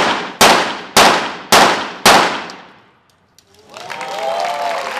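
A rapid-fire series of five .22 pistol shots, about half a second apart, each with a ringing echo: one five-shot series of the 25m rapid fire pistol event. About a second and a half after the last shot, applause and cheering start.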